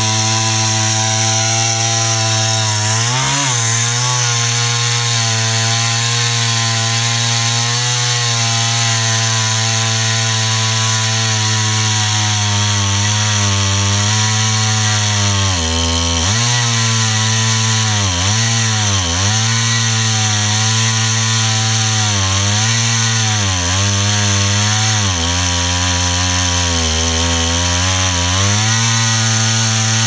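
Husqvarna 395XP two-stroke chainsaw with a 4-foot bar, mounted in an Alaskan chainsaw mill, running at full throttle while ripping a log lengthwise into a slab. The engine note holds steady but sags in pitch briefly now and then as the long bar loads in the cut, most often in the second half.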